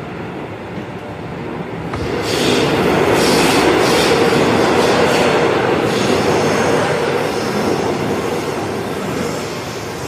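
The inside of a moving metro train car: the steady running noise of the train, which grows louder about two seconds in and eases again near the end.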